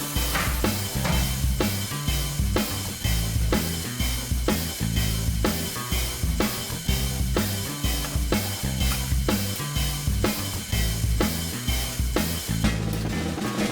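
Background music with a steady drum-kit beat, about two beats a second, over a bass line.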